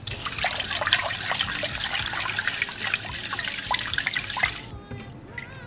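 Raw rice being washed by hand in water in a rice cooker's inner pot: fingers swishing and rubbing the grains, a quick run of splashes and sloshes, the rinse before cooking. It stops about four and a half seconds in.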